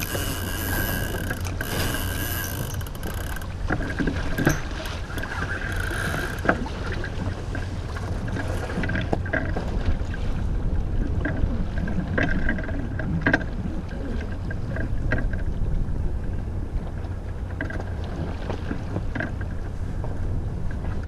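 C&C 110 sailboat under sail: water rushing along the hull over a steady low rumble of wind on the microphone, with scattered light clicks and knocks.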